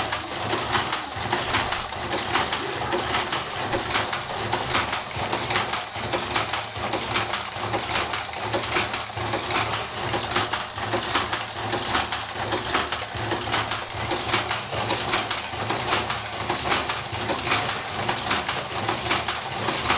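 Karaşimşek electric tobacco rolling machine running steadily while rolling cigarettes, a constant high hiss with rapid, regular mechanical clicking.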